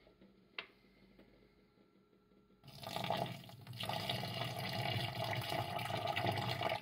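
Water rushing and pouring, starting suddenly about two and a half seconds in and cutting off abruptly at the end.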